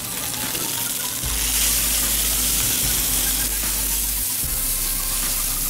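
Stuffed chicken breast searing in a stainless steel sauté pan over a gas burner: a steady sizzle that grows louder about a second in and then holds.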